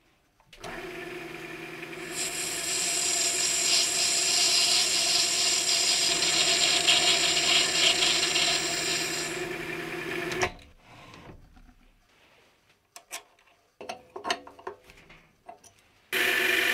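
Mini lathe running and machining brass bar stock: a steady motor hum with a loud cutting hiss over it for about eight seconds, stopping about ten seconds in. After that come scattered light clicks and knocks.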